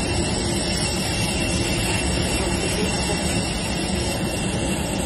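Steady jet-turbine noise from aircraft on the ramp: an even roar with a constant high whine over it.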